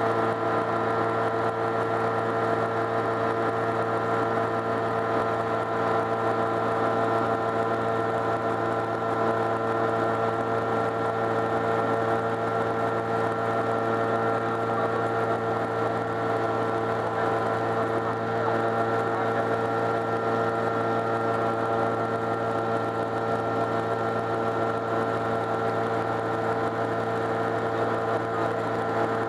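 Sky Arrow light aircraft's engine and pusher propeller running steadily in flight, heard from inside the cockpit as a constant drone.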